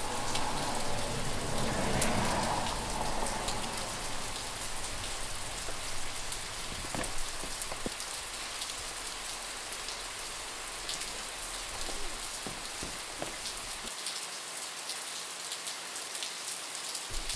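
Steady rain falling, with the patter of many individual drops.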